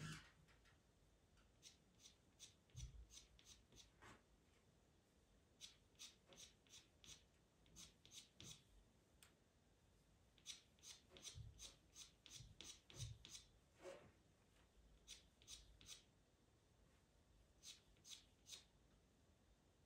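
Faint, quick scratching of a Faber-Castell pastel pencil on Pastelmat paper as short hair strokes are drawn in, in runs of several strokes a second with short pauses between. A few soft low bumps.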